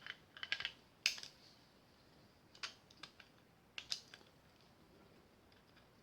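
Small, sharp metal clicks and taps as a homemade cylinder is worked into the frame of a Nagant revolver: a quick cluster in the first second, then single clicks at intervals, fading to faint ticks near the end.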